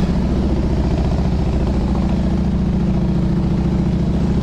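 V-twin motorcycle engine running steadily under load while climbing, with an even, pulsing exhaust rumble.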